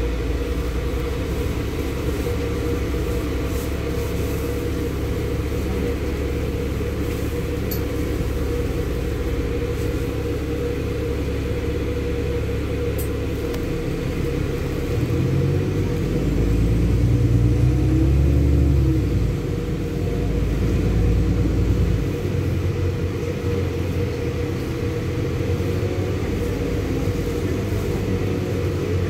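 Inside a LiAZ-6213.65 articulated city bus under way: a steady low engine and road rumble, which grows louder for a few seconds about halfway through.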